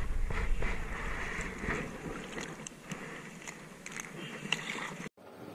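Shallow sea water splashing and lapping around a wading angler as he handles a mesh fish basket, with scattered small clicks. It cuts off abruptly shortly before the end to a quiet, even room tone.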